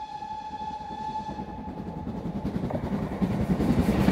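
Train sound effect: a whistle holds one long steady note that fades out about two seconds in, over a rumble of rolling wheels. The rumble grows louder, and clickety-clack beats of the wheels on the rail joints come in near the end.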